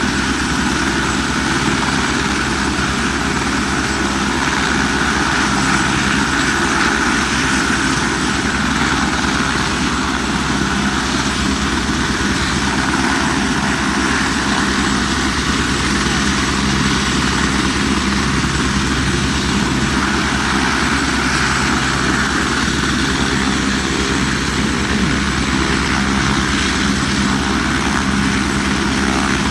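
Helicopter running on the ground at a steady pace: a fast, even beat of the rotor blades under a steady high whine.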